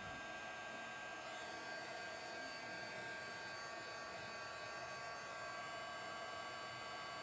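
Handheld craft heat gun running steadily, a constant blowing hum with a few steady tones. It is blowing hot air over vinyl stencil letters on a doormat to make them lie flat.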